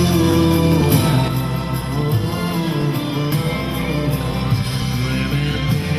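Loud music with guitar and a steady beat.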